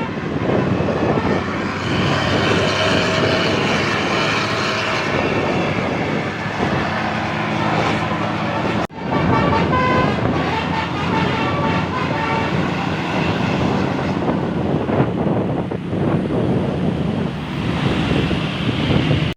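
Road traffic and a bus engine running on the move, with a run of short tooting notes from a bus's basuri (telolet) horn between about ten and twelve seconds in. The sound cuts out abruptly for a moment about nine seconds in.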